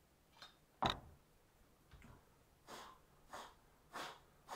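A heavy cast-iron bench vise knocks once, sharply, on the wooden workbench top as it is handled, about a second in. Four soft rustling swishes follow in the second half.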